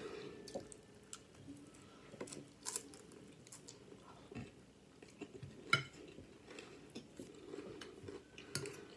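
Cutlery clicking against a dish, with chewing and crunching of crispy chicken salad in scattered short clicks and crunches.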